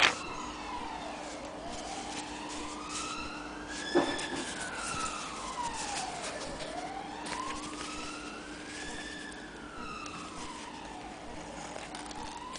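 Emergency-vehicle siren wailing, its pitch slowly rising and falling about every five seconds, with a sharp knock at the start and another about four seconds in.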